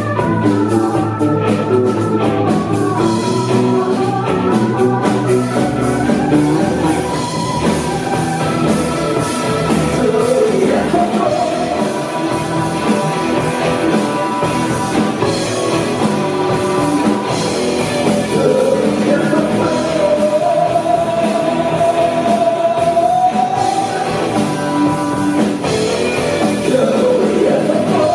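Live rock band playing a song, with a melody line held in long notes over the band.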